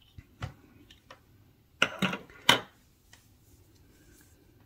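Small clicks and taps of hand tools being handled on a workbench: a few light ones early on, then a louder cluster of three sharp clicks about two seconds in.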